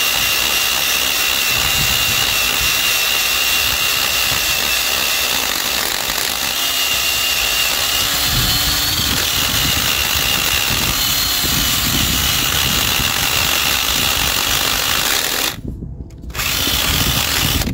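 Cordless drill spinning a rubber eraser (toffee) wheel against the inside of an alloy wheel rim, rubbing off old wheel-weight adhesive, the brand-new wheel shuddering a lot against the metal. The drill runs steadily with a high whine, stops for under a second near the end and starts again.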